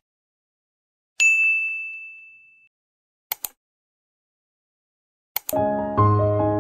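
A bright notification-bell ding sound effect about a second in, one clear tone ringing out and fading over about a second and a half, with short mouse-click sounds around it. Soft piano music starts near the end.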